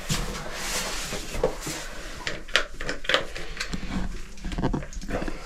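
Diving suits being soaped up by hand: a rubbing hiss in about the first second, then irregular clicks and knocks as the suits and soap are handled.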